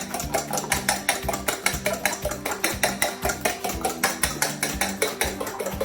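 Background music: held notes over a quick, steady percussive beat.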